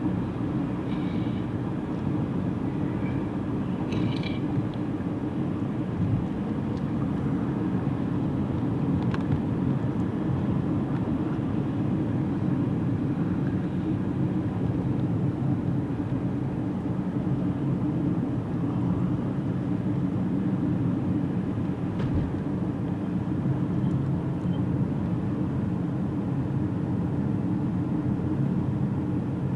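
Steady road and engine noise of a moving car heard from inside the cabin, a constant low drone that does not change.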